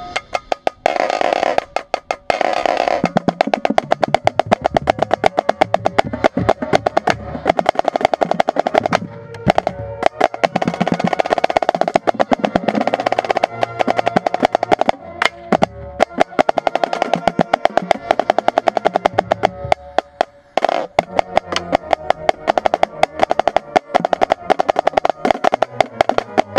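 Marching snare drum played right at the microphone: fast stick strokes and rolls, with a short break about twenty seconds in.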